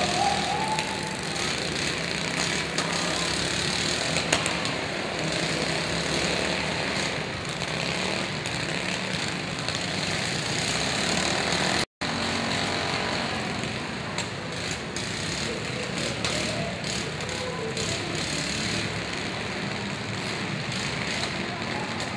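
Several riding lawn mower engines running together under load as the mowers push and ram each other, a dense steady mechanical noise with a few sharp knocks. The sound drops out for an instant about halfway through.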